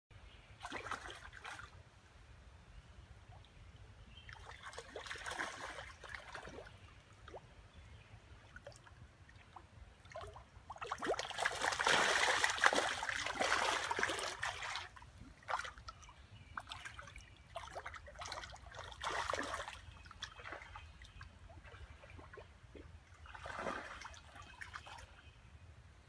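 A large fish thrashing in shallow water, making bouts of splashing. There are several short bouts and one long, loud one of about four seconds near the middle.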